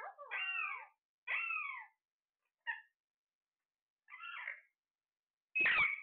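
Caged Alexandrine parakeets calling: about five short calls, each arching and then falling in pitch, with pauses between them. The loudest call comes near the end.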